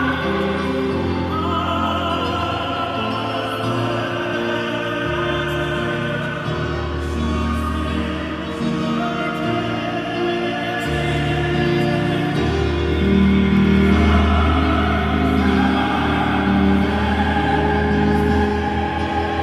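A mixed choir singing slow, held chords over a low bass part, swelling a little louder about two thirds of the way through.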